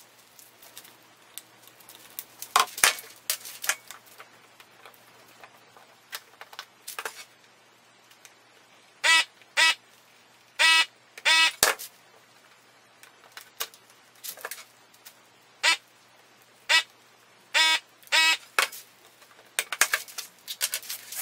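Handheld desoldering gun's built-in vacuum pump buzzing in short bursts, about nine times in the second half, each burst sucking molten solder off a slider's pins. A few sharp clicks and knocks come before them.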